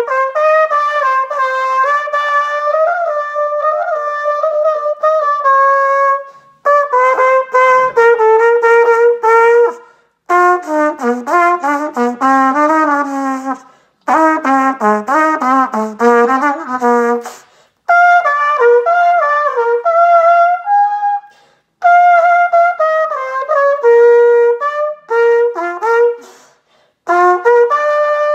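Solo trumpet played unaccompanied in phrases of a few seconds, each broken off by a short pause for breath, with quick runs of notes through the low register in the middle.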